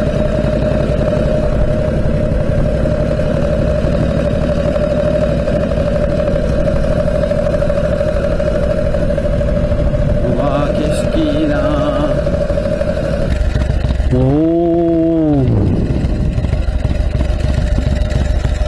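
Harley-Davidson Panhead V-twin motorcycle engine running as the bike rides along, its pushrods freshly repaired and the engine going well. About 14 seconds in there is one rev that rises and falls as the bike slows into a lookout.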